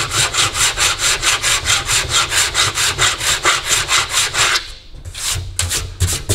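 Body file with a curved blade rasping across an aluminium bonnet panel in quick short strokes, about five a second, dressing down the high spots and the raised lip at the panel edge. The strokes pause after about four and a half seconds, then a few more follow.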